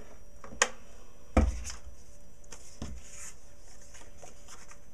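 Craft items handled on a tabletop: a sharp click about half a second in, then a heavier thud as something is set down about a second and a half in, a lighter knock near three seconds, and faint paper rustling between.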